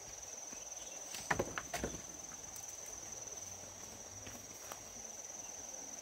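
Insects chirring steadily at one high pitch, with a short cluster of knocks, like footsteps, about a second and a half in.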